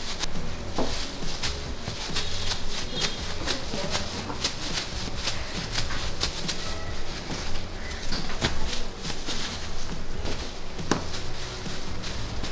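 Bakery work sounds: scattered light clicks and knocks from handling on a stainless steel worktable, over a steady low hum.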